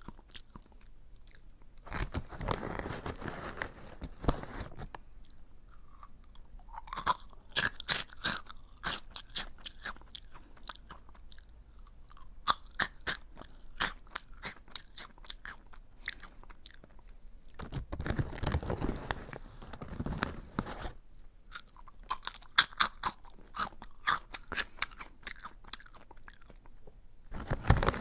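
Close-miked crunching and chewing of a hard, crunchy curry-flavoured snack (Aji Curry). Runs of sharp, crisp crunches alternate with denser stretches of steady chewing.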